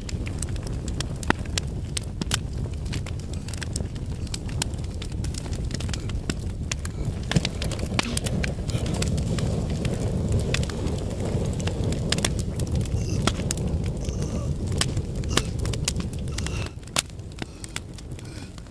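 Campfire burning: a steady low rush under many sharp crackles and pops, dropping to a quieter level near the end.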